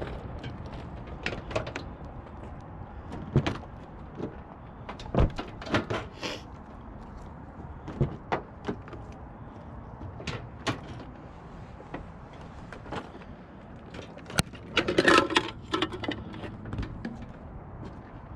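Scattered knocks, clicks and rattles of things being moved and handled inside a car's cabin, with a busier clatter about fifteen seconds in.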